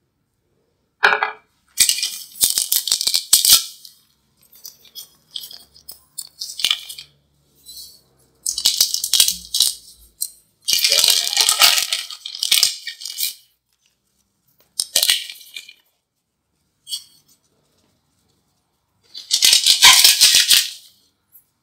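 Kitchen food-preparation noises: several separate bursts of dry, hissy rattling and scraping, each a second or two long, with silence between them.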